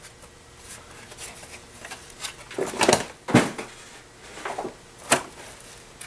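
Plastic top cover of a Eureka Airspeed One vacuum's brush head being pried off with a flathead screwdriver, its clips giving a few sharp snaps and clicks as they release. The loudest snap comes about halfway through.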